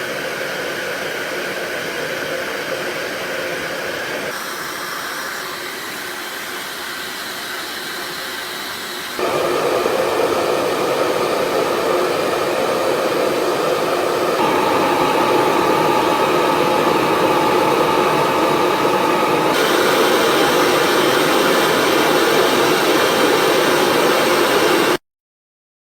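ghd Helios hair dryer running with a steady rush of air. Its tone and loudness shift a few times, and it gets clearly louder about nine seconds in. It cuts off abruptly near the end.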